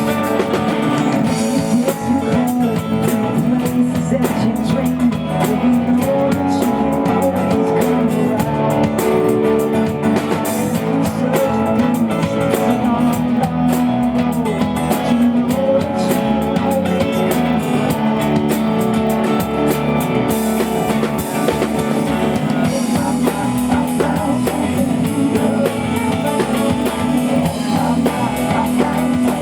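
Live band playing a song through the PA, with guitar and drum kit, run through as a sound check to set levels.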